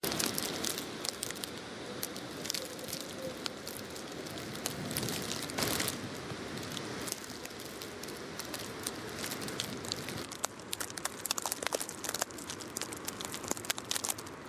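Blizzard wind rushing over the microphone, with many sharp crackles and ticks throughout that come thicker from about ten seconds in.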